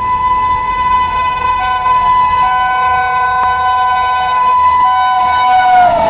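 Indian Railways locomotive air horn held in one long blast, sounding several notes together, as an express train approaches; near the end the pitch drops as the locomotive passes.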